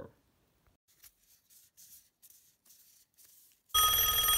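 Near silence with only faint soft noises, then a telephone starts ringing suddenly and loudly near the end, a steady high ringing tone.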